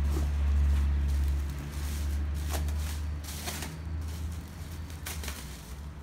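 Clear plastic wrapping around a boxed baby stroller crinkling in a few short rustles as hands handle it, over a steady low hum that is loudest in the first second and a half.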